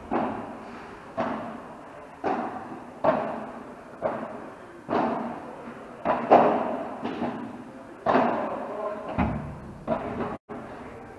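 Padel rally: rackets striking the ball, and the ball bouncing off the court and walls, in a string of sharp hits about once a second, each ringing out with an echo.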